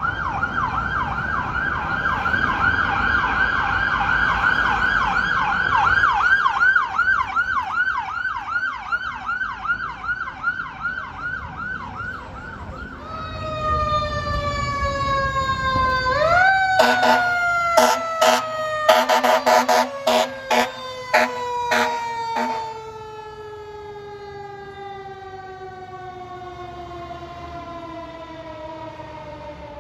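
Fire apparatus responding with sirens. For about the first twelve seconds an electronic siren runs a rapid yelp. Then a mechanical siren winds up briefly and slowly winds down, its pitch falling steadily, with a run of short horn blasts in the middle and a heavy engine rumbling as a truck passes.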